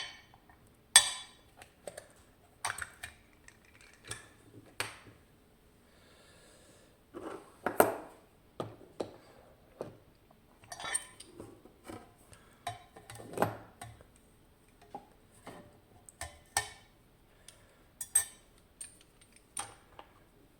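Irregular metallic clinks and taps as an ABUS 88/50 padlock with its ABUS Plus disk-detainer core and lock tools are handled.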